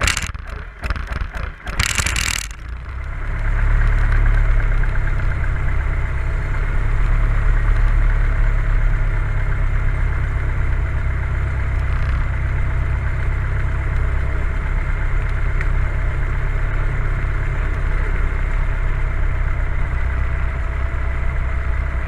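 Cessna 172's piston engine turned over by the starter for about two and a half seconds, then catching and settling into a loud, steady idle, heard from inside the cabin.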